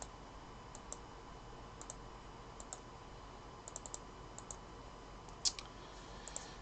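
Faint clicks of a computer mouse and keyboard while a list is copied and pasted into a spreadsheet: scattered single clicks and quick pairs, a small flurry about four seconds in, and the sharpest click about five and a half seconds in.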